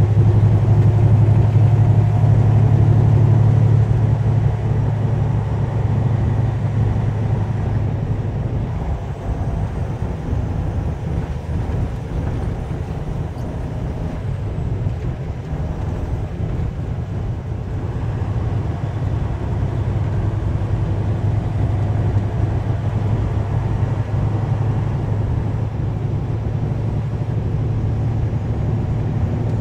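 Heavy truck's engine droning steadily with road noise, heard from inside the cab. The drone eases about four seconds in and gradually builds again in the second half.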